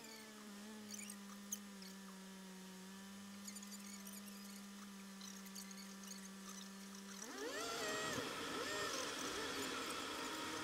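A steady hum inside a car's cabin while it sits stopped in traffic. About seven seconds in the hum cuts off, and the car pulls away with its engine and road noise climbing in a few rising sweeps.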